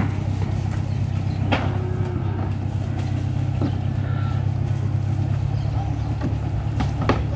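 The engine of the boat moored with the cattle barge, running steadily with a low, even hum. A couple of sharp knocks come through it, about a second and a half in and near the end.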